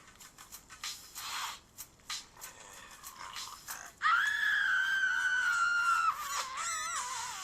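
A bird gives a loud, high, drawn-out call about four seconds in, lasting about two seconds and falling slightly in pitch, then breaks into a short wavering warble. Before it there are only faint scattered clicks.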